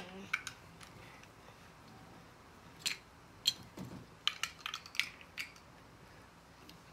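Large plastic Lego bricks clicking and clacking as a child's hands press them together and pull them apart: a few sharp clicks at the start, then a busier run of clicks past the middle.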